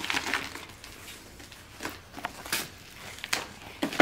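Crinkling and rustling of a yellow padded plastic mailer being squeezed and tugged at by hand to open it, in several short bursts.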